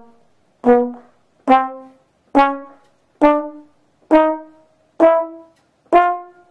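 Trombone playing seven short, separate notes, about one a second, each fading quickly, the pitch climbing gradually from note to note.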